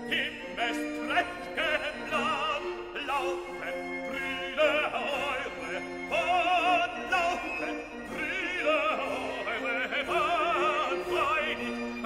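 Background music: operatic singing with a strong vibrato over an orchestra.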